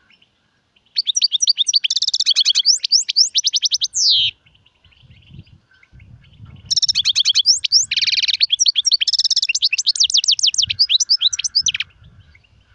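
European goldfinch singing: two long bursts of rapid twittering trills and chirps, the first starting about a second in and lasting some three seconds, the second starting near seven seconds and running about five seconds.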